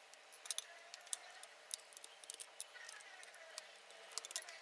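Irregular small clicks and light taps of hard parts being handled while a headphone is worked on, about a dozen sharp ticks scattered through the few seconds.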